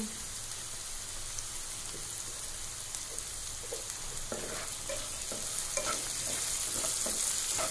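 Sliced onions sizzling in hot mustard oil in a nonstick kadai, a steady hiss. From about four seconds in, a slotted spatula stirs and scrapes through them in repeated short strokes.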